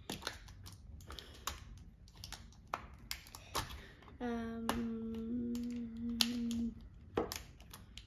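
Fingernails and fingers clicking and picking at a small plastic toy carrier in irregular taps while trying to get it open. About four seconds in, a child hums one long low note for a couple of seconds.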